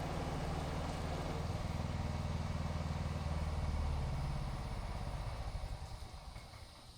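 Pressure washer engine running steadily, then dying away over the last two seconds.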